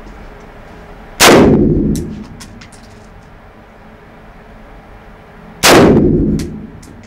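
M4 carbine fired twice, single shots about four and a half seconds apart, each echoing in the indoor range. A few faint clicks follow the first shot.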